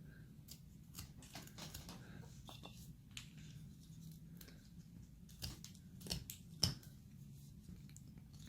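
Carving knife slicing basswood in short, irregular strokes, faint, with one louder cut about two-thirds of the way through.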